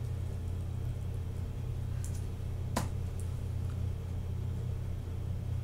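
A steady low hum, with a few faint clicks about two to three seconds in from keystrokes on a computer keyboard.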